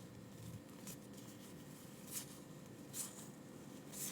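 Quiet room tone with a few soft swishes of trading cards being slid and handled, about two, three and four seconds in.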